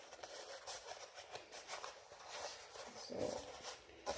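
Cardboard toilet-roll tubes being squashed and folded together by hand, with faint rustling and crinkling. A brief, louder muffled sound comes about three seconds in.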